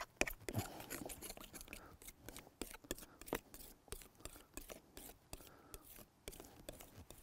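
Faint, irregular clicks and scrapes of carbon black paint being mixed into very fluid acrylic gel on a sheet of plexiglass.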